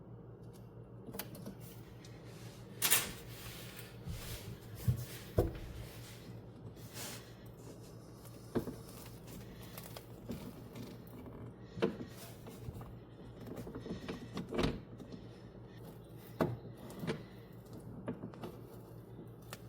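Scattered light clicks and knocks of hand work on metal parts, over a steady low hum.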